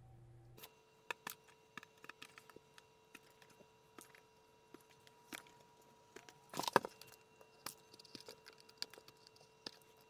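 Razor blade cutting and snapping off the small plastic tabs on a Jeep JL fender half: scattered sharp clicks and small cracks, with a louder cluster about two-thirds of the way through.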